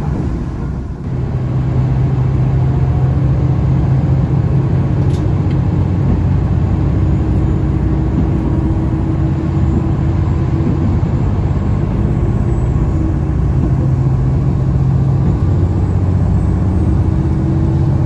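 Train running at speed, heard from inside the carriage: a steady rumble of running gear with a low, even hum.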